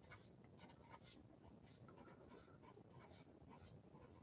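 Faint scratching of a felt-tip marker writing on paper, many short strokes one after another.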